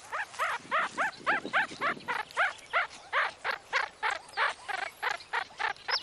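Meerkat pup calling excitedly over a large larva, a rapid run of short chirping calls, about five a second, each rising and falling in pitch.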